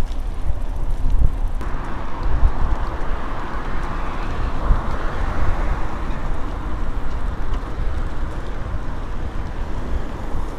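Wind buffeting the microphone of a handlebar-mounted camera on a moving bicycle, a gusty low rumble over road and traffic noise. A brighter, steady hiss comes in abruptly about one and a half seconds in.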